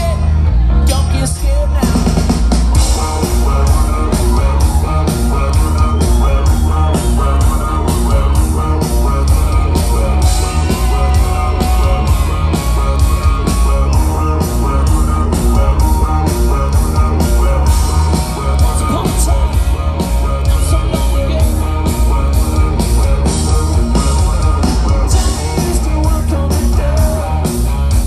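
Live rock band playing loud through a PA: electric guitars, bass and a steady drum-kit beat with a lead singer. The full band with its heavy bass comes in about two seconds in.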